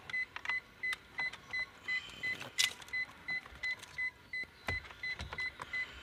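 Car hazard-light flasher ticking evenly, about three short ticks a second, with scattered plastic clicks and knocks from the head unit being handled in the dash opening.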